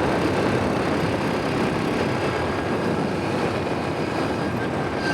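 ATV engine running steadily while riding along a rough road, with engine and road noise mixed together.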